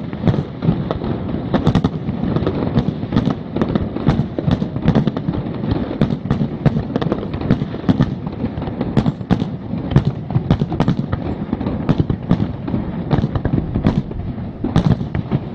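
Aerial firework shells bursting in quick succession: many sharp bangs, several a second, over a steady low rumble.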